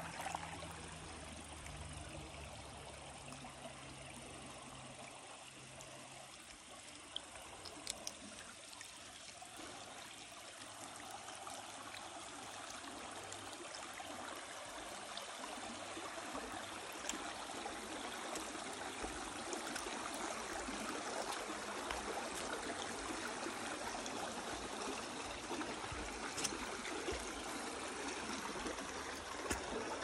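Shallow creek water trickling over slate bedrock, a steady rushing that grows a little louder about halfway through, with a few sharp clicks.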